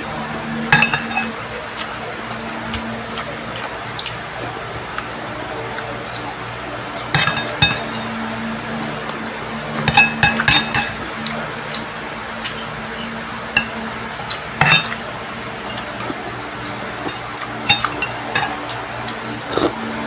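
A spoon clinking against a dish while eating: scattered sharp clinks with a short ring, several coming in quick clusters, over a low steady hum.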